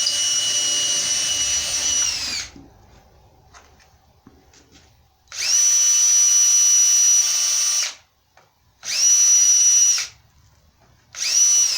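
Electric drill boring bolt holes through a cured plaster-gauze mold backing, run in four bursts of one to three seconds: a steady high whine that spins up and winds down each time, with short quiet pauses between.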